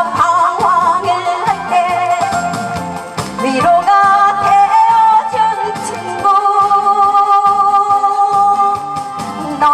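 A woman singing a Korean pop song into a microphone with instrumental accompaniment. Her voice wavers with vibrato at first, then long notes are held from about four seconds in.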